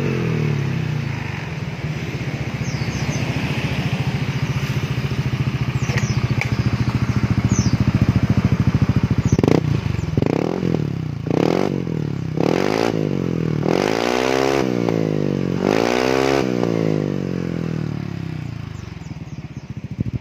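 Yamaha NMAX scooter's single-cylinder engine running through a stock muffler that has been hollowed out for a deeper, bassier note. It idles steadily, then is revved about six times in quick succession, the later revs held longer, before settling back to idle.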